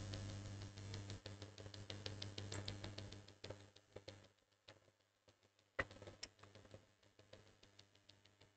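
Near silence: a faint low hum that fades out about four seconds in, scattered faint ticks, and one sharper click a little before the middle of the second half.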